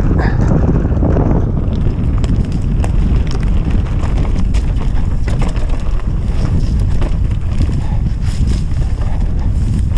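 Wind buffeting the action camera's microphone as a mountain bike rides fast down a dirt singletrack, a heavy steady rumble mixed with tyre noise on the trail. Short clicks and rattles from the bike run through it.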